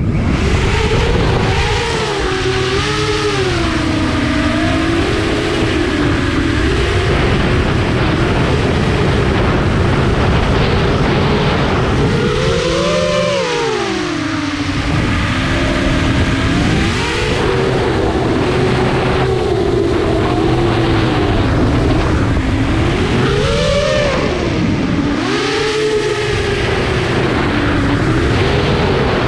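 FPV quadcopter's brushless motors (2507, 1800 kV) and propellers whining, the pitch rising and falling constantly with throttle, with big swoops about 13 and 24 seconds in. Heavy wind rush on the onboard camera's microphone runs under the whine.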